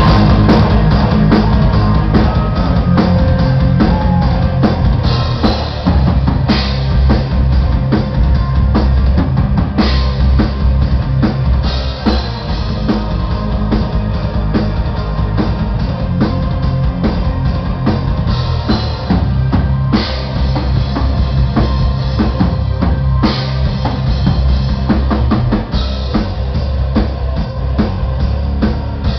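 Symphonic metal band playing an instrumental passage live: driving drum kit with bass drum and snare under distorted electric guitar and bass. It is loud and heavy in the low end, with a dull top, as picked up by a small camera microphone in the crowd.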